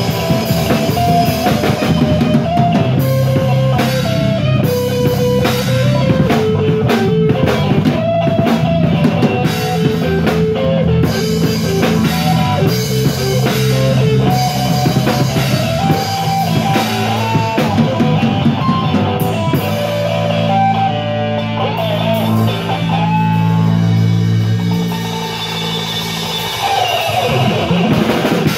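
Live blues-rock band playing loud: electric guitar lines over drum kit and bass. About two-thirds through the drum hits thin out and the band holds long low notes.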